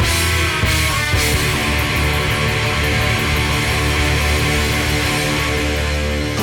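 Intro song: loud rock music with distorted electric guitar and drums.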